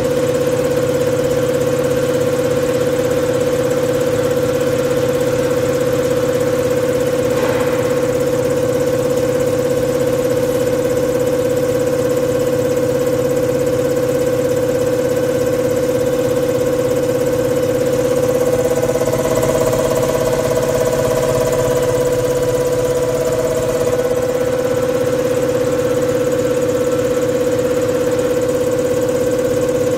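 NTS300 common rail injector test bench running a Bosch injector at 160 MPa rail pressure and 800 rpm pump speed: a steady mechanical drone with a fast, even ticking from the injector firing. A second, higher tone joins for a few seconds past the middle.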